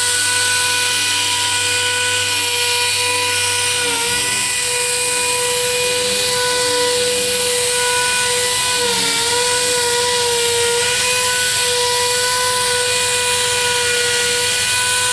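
Quick Cut power sander running steadily while color sanding the paint of a Corvette T-top. It gives a steady high whine over a hiss, and the pitch dips slightly twice, about four and nine seconds in.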